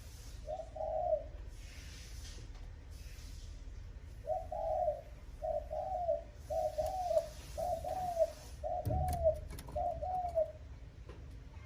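Spotted dove cooing: one arched coo near the start, then a quick run of about seven coos, a little under a second apart, in the fast 'thúc gù' style used to rouse decoy doves. A few sharp clicks with a dull thud about nine seconds in.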